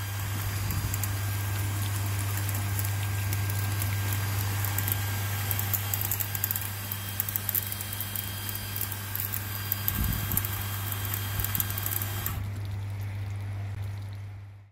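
Cleaning jets on the spray bar of a homemade stainless steel drum filter hissing and splashing water onto the wire-mesh drum, over a steady low electric hum. The spray cuts off suddenly about twelve seconds in, leaving only the hum.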